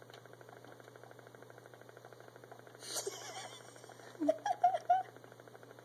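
Quiet steady low hum, then a short breathy rush about three seconds in and a few brief murmured voice sounds, like a soft laugh or mumble, near the end.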